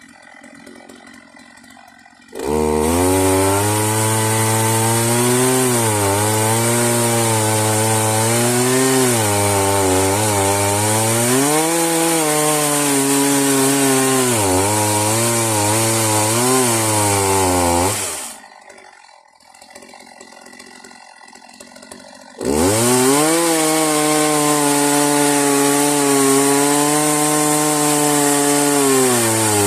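Chainsaw in a homemade Alaskan chainsaw mill, run hard while ripping a log lengthwise into boards. Its pitch sags and recovers as the cut loads it. It starts suddenly a couple of seconds in, drops out for about four seconds in the middle, then comes back.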